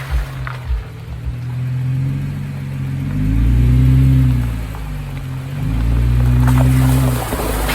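Jeep engine revving up twice, its pitch rising and falling with each surge, with a few low thumps in the first second or so.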